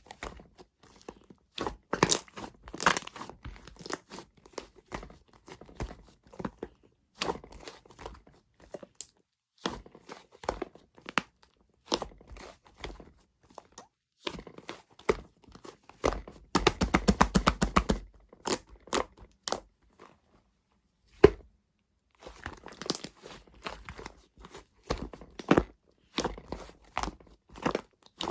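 Shaving foam being squished and pressed, with irregular crunchy clicks and crackles. It becomes a dense, fast crackle about two-thirds of the way in, then pauses briefly.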